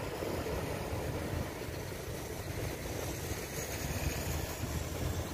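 Airbus A350's jet engines giving a steady rumble as the airliner lands, with wind buffeting the microphone.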